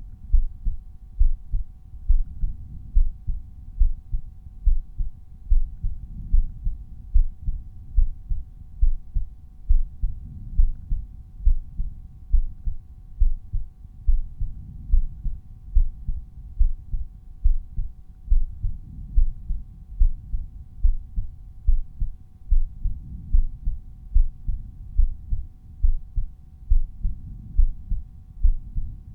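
Resting human heartbeat auscultated at the aortic point: a steady, regular run of low thumps, with a faint steady hum underneath.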